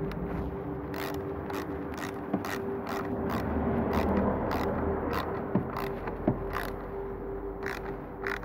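Ratchet wrench with a 10mm socket clicking as a nut on the battery terminal fuse block is tightened, a quick run of clicks that thins out near the end.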